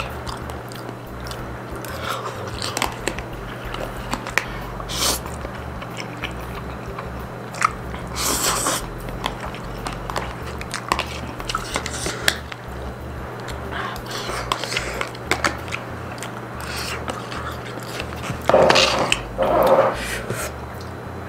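Close-up eating sounds: a mouthful of instant noodles with crunchy chip pieces being chewed, bitten and slurped. Short clicks and bursts run throughout, with a few louder mouth noises near the end.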